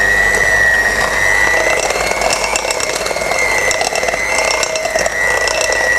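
Electric hand beater running on slow speed with a steady high whine, beating cake mix into a butter-and-egg mixture.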